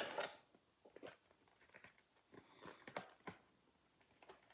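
Near silence with a few faint ticks and light crinkles: hands handling card packs and packaging.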